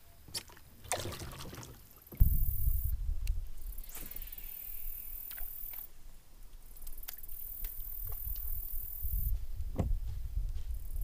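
Sounds of a kayak on the water: scattered knocks and clicks, and a low rumble of water against the hull that starts suddenly about two seconds in.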